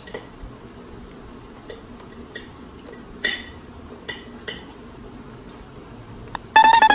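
Scattered light clinks and knocks of glasses and dishes on a dining table during a meal. Near the end comes a loud, high squeak that flutters, then rises in pitch.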